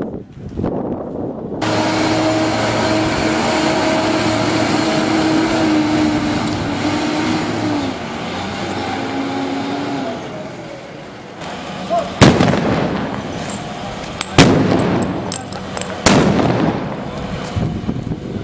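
A heavy vehicle's engine running steadily, then three loud sharp bangs about two seconds apart, each with a short rumbling tail, from shots or grenades fired during street clashes.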